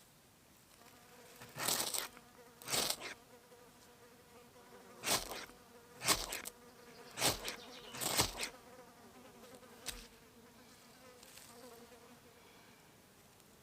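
A fly buzzing steadily near the microphone, with seven short, loud noisy strokes at uneven intervals between about two and ten seconds in.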